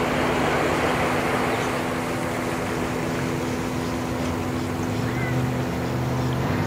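Tohatsu outboard motor on a small boat running steadily as the boat moves slowly past, a constant engine hum over the wash of water. A brief high chirp about five seconds in.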